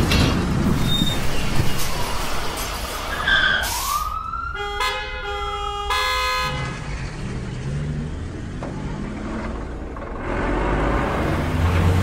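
Animation sound effects: a noisy rumble from a blast, then a short rising whistle and a brief run of stepped, horn-like tones about five seconds in, then a heavy engine running, louder near the end.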